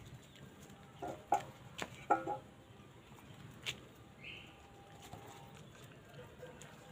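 A few short animal calls in a quick cluster about a second in, and one short higher call a little past the middle, among light clicks and taps.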